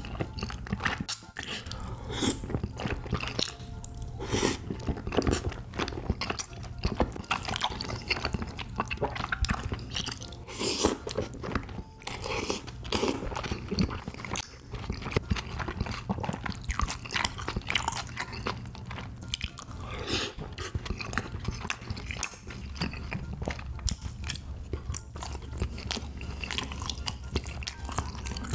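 Close-miked eating of tteokbokki: wet slurps of chewy rice cakes and noodles, and steady open-mouthed chewing with many small smacking clicks, over a steady low hum.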